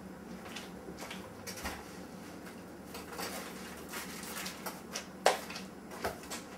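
Scattered light knocks and clinks of dishes and kitchen items being handled on a counter, the sharpest about five seconds in, over a faint steady hum.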